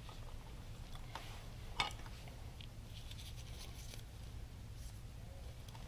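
A few light clicks and taps of small metal motorcycle parts being handled and fitted, the sharpest about one and two seconds in, over a low steady hum.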